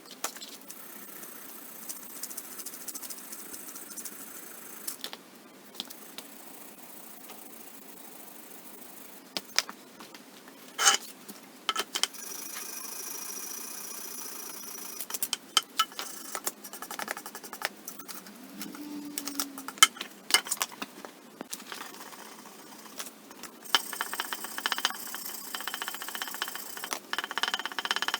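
Metal parts and tools clinking and rattling in irregular knocks and clicks as they are handled, busier in the second half.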